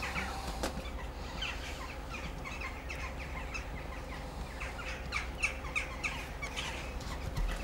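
Many short, high chirps in quick, irregular succession over a low steady hum.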